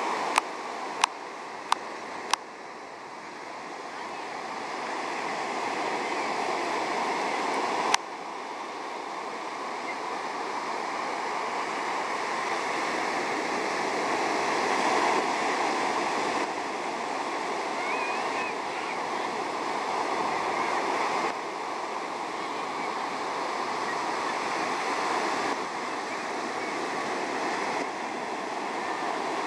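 Ocean waves breaking and washing in a steady rush that swells and eases, with a few sharp clicks in the first couple of seconds and another about eight seconds in.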